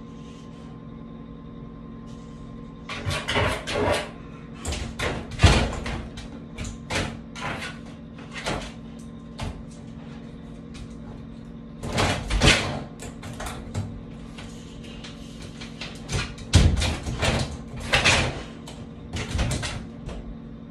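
A dog pawing at a closed door and its metal lever handle: repeated bursts of knocking, rattling and scratching against the door. The bursts start about three seconds in and come in clusters with short pauses between them.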